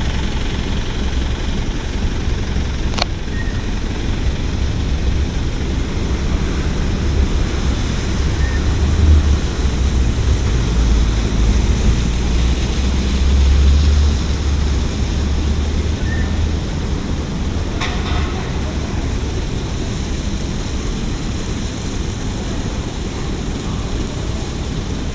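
Steady low rumble of engine and road noise inside a moving car, with a brief click about three seconds in and another near eighteen seconds.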